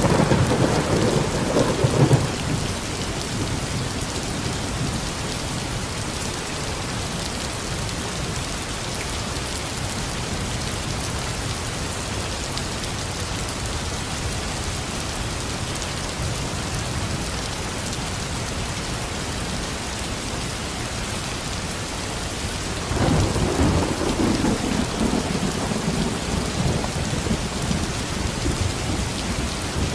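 Steady rain falling, with a roll of thunder rumbling at the start and another about three quarters of the way through that lasts several seconds.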